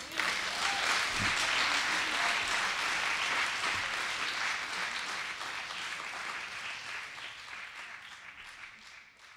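Audience applauding. It starts at once at full strength and slowly dies away over the last few seconds.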